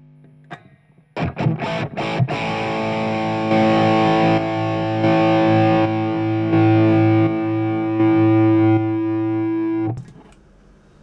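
Electric guitar played through the Ovaltone hybrid tube preamp with distortion: a few short strummed chords, then one sustained chord that rings while the boost is switched on and off four times, the volume stepping up and back down each time. The chord is muted suddenly near the end.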